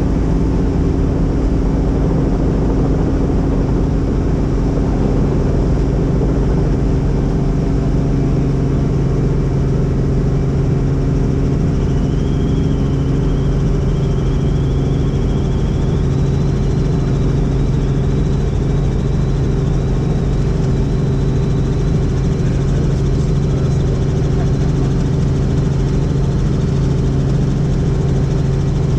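Helicopter engine and rotor noise, a steady drone with a constant low hum. A faint high whine enters about twelve seconds in and edges slightly upward.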